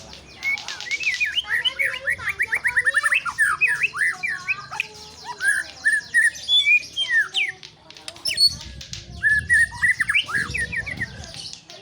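White-rumped shama singing: quick runs of whistled and chattering notes, a short break about eight seconds in, then another phrase.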